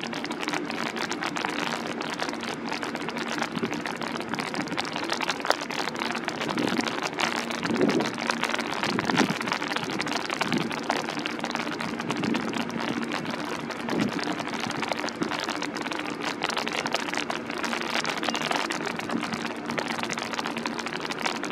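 Rain falling steadily, with a dense patter of individual drops close by, over a steady low hum.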